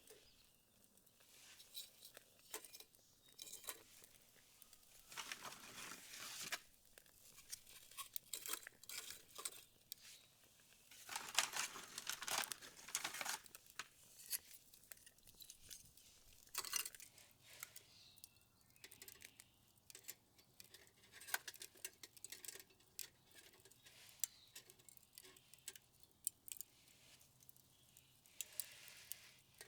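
Faint, scattered rustling, crackling and small metallic clicks from charcoal and a folding metal camp stove being handled and arranged. There are two longer rustling spells, about five and eleven seconds in.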